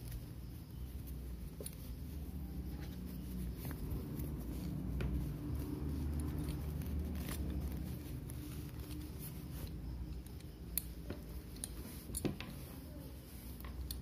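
Hands handling a coiled leather belt right against a phone's microphone: a steady low rubbing rumble with scattered sharp clicks, two of them louder in the last few seconds.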